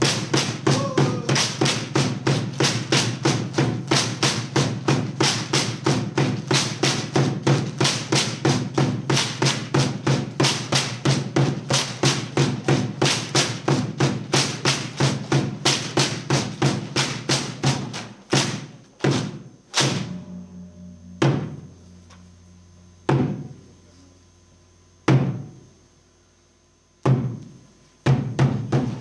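Bamboo dance percussion: a drum and bamboo poles struck in a steady beat of about three strikes a second. About two-thirds of the way through the beat breaks off into single strikes roughly two seconds apart, and the fast beat resumes at the very end.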